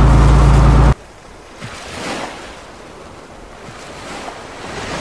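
A boat's engine running with a steady low drone under wind noise, cut off abruptly about a second in. It gives way to the softer wash of ocean waves, swelling and fading a few times.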